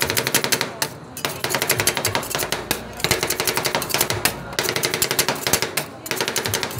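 Two metal spatulas chopping rapidly on a stainless-steel cold plate, a fast clatter of sharp metal strikes with a few brief pauses, as rolled-ice-cream mix is chopped and worked on the plate.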